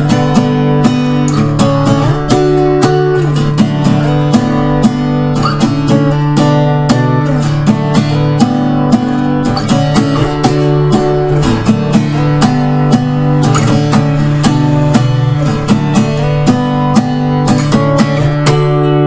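Tagima Dallas America steel-string electro-acoustic guitar strummed in a steady rhythm, chords ringing under closely repeated strokes.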